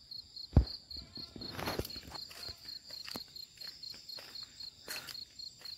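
Insects chirping in a steady, rapid pulse, with scattered footsteps and knocks on a paved path; the loudest is a sharp thump just over half a second in.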